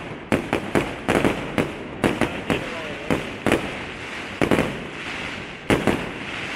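Aerial fireworks bursting in rapid, irregular succession: sharp bangs about two a second, over a continuous crackle and hiss from the burning stars.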